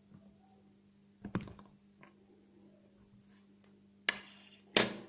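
A few sharp taps and clicks of small objects being handled and set down on a wooden tabletop: one about a second in, then two close together near the end, the last the loudest.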